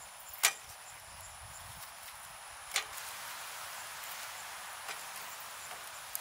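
Insects chirping steadily in a high pitch over a soft hiss, with two sharp clicks, about half a second and nearly three seconds in.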